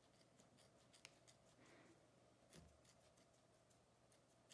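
Near silence: room tone with a few faint clicks and a soft thump from handling.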